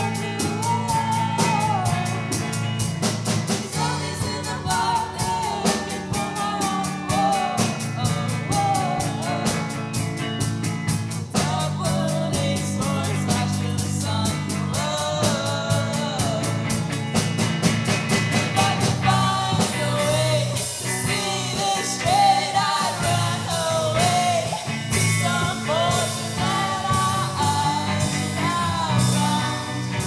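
Live rock band playing: a woman sings lead over electric bass, electric guitar and a drum kit keeping a steady cymbal beat.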